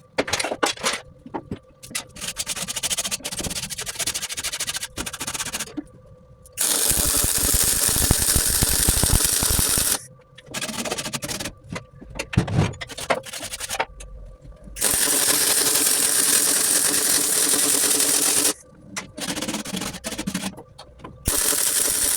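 MIG welding on aluminium: short crackling bursts of tack welds, then two steady runs of about four seconds each, followed by more short bursts.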